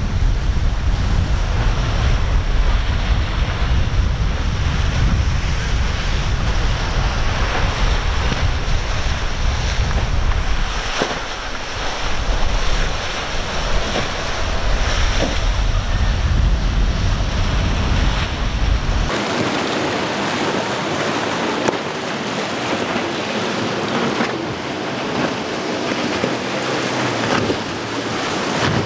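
Rough water and breaking waves with wind buffeting the microphone, and motorboats running through the chop. About two-thirds of the way in the deep wind rumble cuts off abruptly, leaving the hiss of spray and churned water with a boat's engine.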